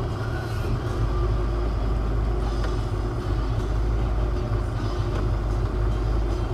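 Car engine running and road noise heard from inside the cabin while the car drives slowly: a steady low rumble.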